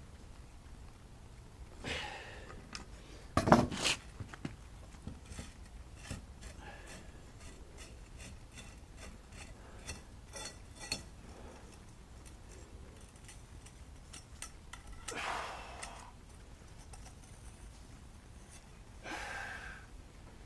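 Scattered clicks and clinks of small metal parts and tools being handled during the dismantling of a bait pump, with a few louder knocks, the loudest about three and a half seconds in.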